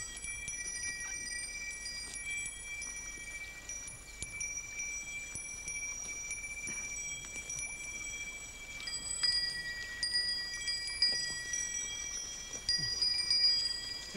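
Small bells ringing in many clear, high, overlapping tones that hang on for a while, struck more often in the last few seconds.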